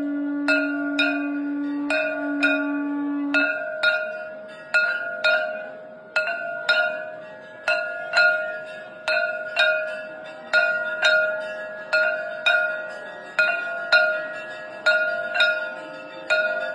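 A conch shell (shankh) blown in one long steady note, with a brief break about two seconds in, stopping a little after three seconds. Throughout, a hand-held temple bell is rung over and over, about three strikes every two seconds, each strike ringing on.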